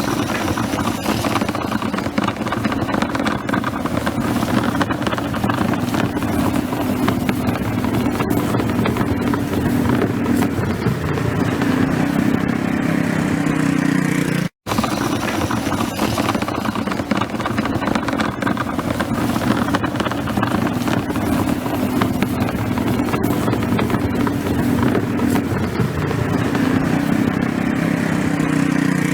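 Manual push floor sweeper with wheel-driven brushes sweeping pavement: a steady rolling, brushing noise with a hum that shifts in pitch now and then. It cuts out for an instant about halfway.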